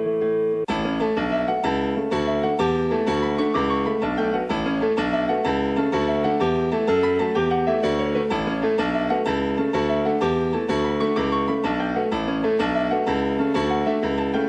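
Background piano music: a steady, flowing run of notes, with deep bass notes joining about half a second in.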